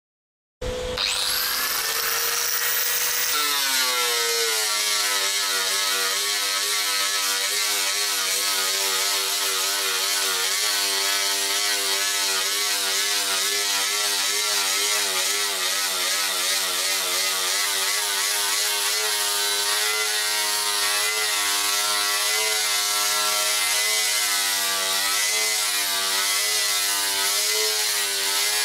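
Angle grinder with a ceramic grinding disc starting up about half a second in with a quick rising whine, then grinding the old epoxy coating and filler off a fibreglass boat hull. Its pitch drops a few seconds in and then wavers steadily while it grinds.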